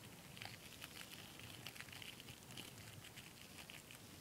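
Faint crinkling of clear plastic packaging being handled and pulled open by hand, in scattered small crackles.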